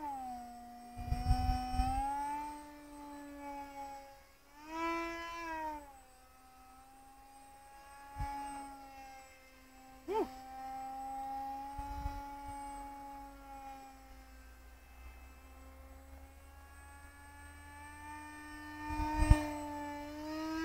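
EMAX 2805 2850 kV brushless motor and 4.5×4.5 propeller of a small RC foam jet whining in flight. The pitch falls at the start, rises briefly about five seconds in, swoops sharply about ten seconds in, then climbs again near the end. A few low rumbles come through, loudest near the start and just before the end.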